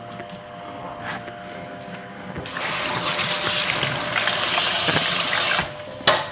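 Kitchen sink tap running for about three seconds, starting a couple of seconds in and shutting off abruptly, followed by a single sharp knock.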